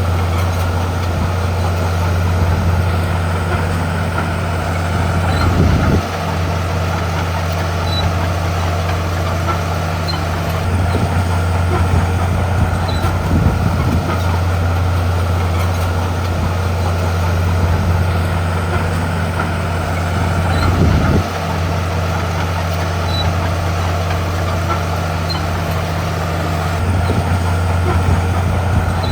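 Komatsu D41P bulldozer's diesel engine running steadily with a low drone, its note shifting briefly twice, about six seconds in and about 21 seconds in.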